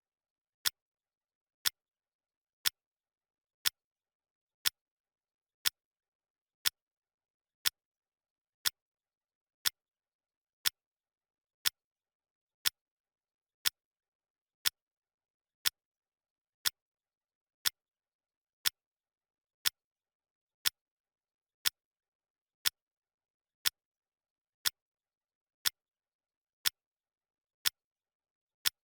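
Clock ticking, one sharp tick each second, evenly spaced with silence between.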